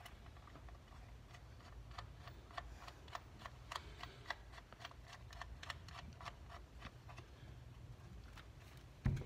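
Faint, irregular small metallic clicks and ticks, a few a second, as the 10 mm bolt holding a new ignition coil is threaded back in by hand, with a slightly louder knock near the end.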